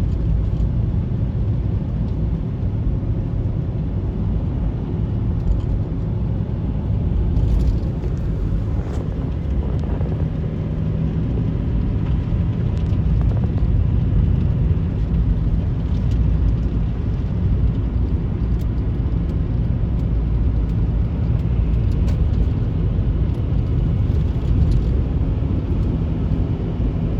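Steady engine and tyre noise heard from inside a car driving along the road, with a few faint ticks now and then.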